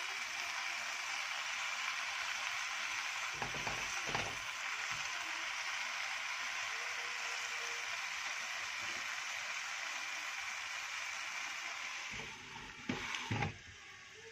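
Spinach sizzling steadily as it sautés in a nonstick pan, with a few knocks of the tongs against the pan about 4 s in. Near the end the sizzle drops and a glass pan lid clatters on with several sharp clacks, leaving the pan quieter under the lid.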